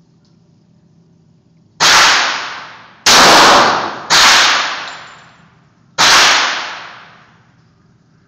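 Four pistol shots from a Glock 21 in .45 ACP, irregularly spaced, the last after a longer pause. Each shot dies away in a long echoing tail.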